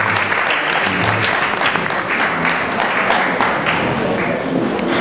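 Audience applauding at the end of a talk: steady clapping from many hands that thins out toward the end.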